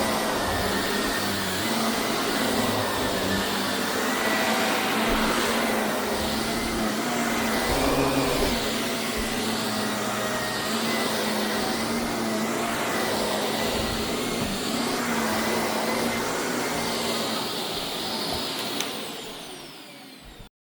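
Shark vacuum cleaner running steadily with a motor whine. It is switched off near the end, and the motor winds down.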